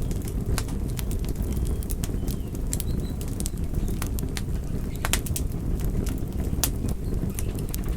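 Campfire crackling, with frequent sharp irregular pops and snaps over a steady low rumble.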